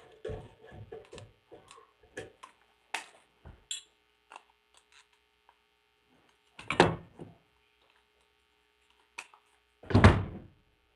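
Handling noise at a workbench as a silicone caulking gun and aluminium parts are picked up and moved: a run of small clicks and knocks, then two louder thumps a few seconds apart. A faint steady electrical hum runs underneath.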